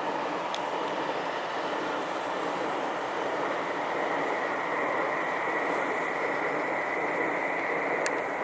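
Kuroshio limited express trainset running past on the rails, a steady rumble of wheels and running gear. A thin high squeal joins about four seconds in, and there is a sharp click near the end.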